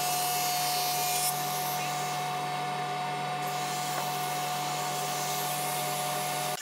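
Thickness planer running with a steady motor hum and the hiss of its cutter planing a hardwood board being fed through. The hiss thins a little over a second in.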